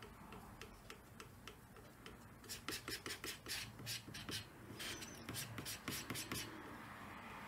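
Plastic bowl scraper and hand rubbing and scraping cold wax and oil paint across a gritty, textured panel. A quick run of short scratchy strokes comes from about two and a half to six and a half seconds in.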